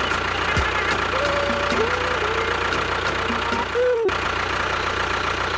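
An engine-like motor running steadily at idle, with a faint steady whine above it. The sound drops out briefly about four seconds in.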